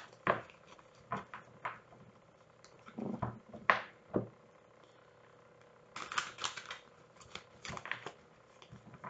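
A deck of tarot cards being shuffled by hand: short flicks and slaps of the cards in several irregular bursts with quiet gaps between, the sharpest a little under four seconds in.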